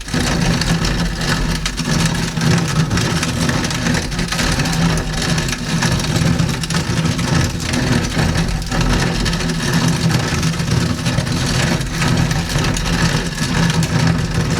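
Cheap hand-cranked plate grain mill grinding grain, its tightened plates crushing the kernels toward coarse flour. It is a steady, continuous grinding noise from even cranking.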